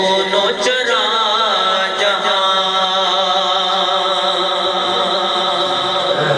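A man chanting a hamd, a devotional Urdu poem in praise of God, in long held notes whose pitch bends slowly, with a few short breaks between phrases.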